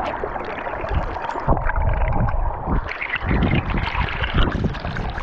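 Fast, muddy stream rushing and splashing over rocks right at the microphone, with water washing over the camera at the surface. The sound is a steady rushing with irregular splashes throughout.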